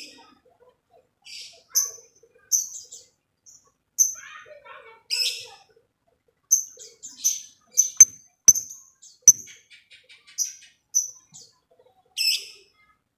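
Lovebirds giving short, sharp, high chirps at irregular intervals. Partway through come a few sharp clicks and a quick run of fine ticking notes, the typing-like call lovebird keepers call ngetik.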